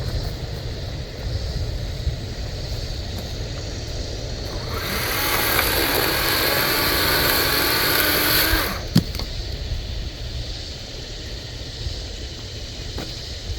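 Small battery-powered electric chainsaw running for about four seconds, starting about five seconds in and cutting off abruptly, with a single click just after.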